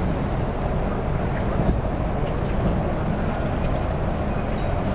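Steady low rumble of a river cruise ship's engines under way, heard from on deck, with wind on the microphone.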